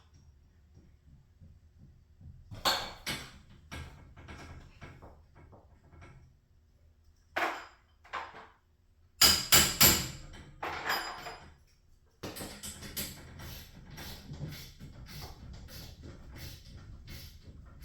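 Metal tools and hardware clanking during garage door torsion spring work: scattered sharp knocks with a metallic ring, the loudest cluster about nine to eleven seconds in, then a quick run of repeated clicks from about twelve seconds.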